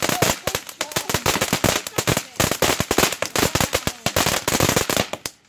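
Firework going off in a rapid, irregular string of sharp cracks and bangs, stopping suddenly near the end.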